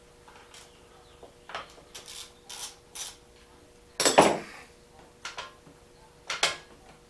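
About eight irregular clinks and knocks of hard objects being handled, the loudest about four seconds in.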